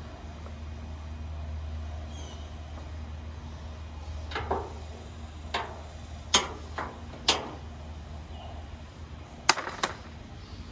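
Sharp knocks and bangs on a steel roll-off dumpster as someone climbs its side and rummages through the items inside, about seven in the second half, the loudest near the end. A steady low hum underneath.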